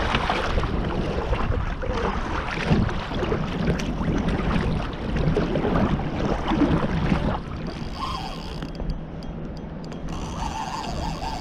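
Wind buffeting the microphone with sea water sloshing around a kayak; the noise drops markedly about seven seconds in, leaving a quieter wash.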